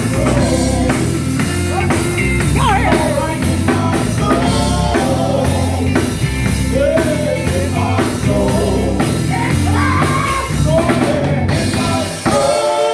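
Live gospel band playing, with drum kit, bass and guitar under sung vocal lines.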